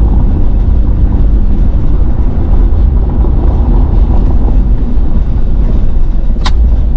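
Truck driving along a road: a steady low rumble of engine and tyres, with one short sharp high sound near the end.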